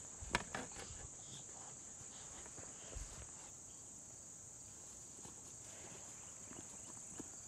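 Steady high-pitched drone of an insect chorus, with a few faint knocks and one soft low thump about three seconds in.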